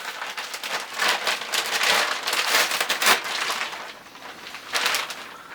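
Plastic packaging crinkling and crackling as parts of a repair stand are unwrapped by hand, busiest through the middle with a few sharper snaps.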